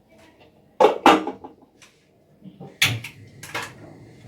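Saucepan and kitchen utensils being handled on the stovetop: a few sharp knocks and clatters, two close together about a second in and two more near the end.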